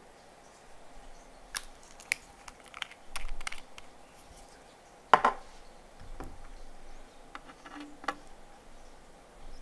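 Hands handling a small bottle and a plastic tray: scattered light clicks and taps, the loudest a sharp tap about five seconds in.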